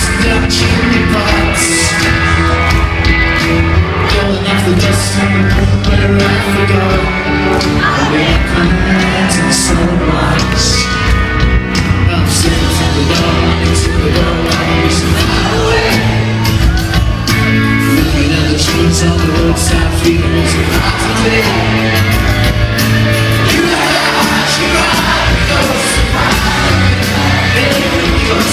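Live rock band playing loud, with sung vocals, heard from within the concert audience.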